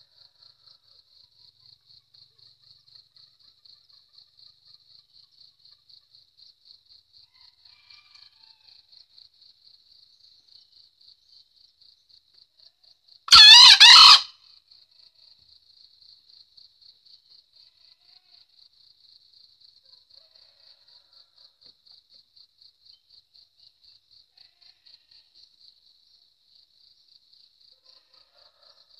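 A caged junglefowl rooster gives one short crow, about a second long, about halfway through. Under it, insects keep up a faint, high, even pulsing chirp.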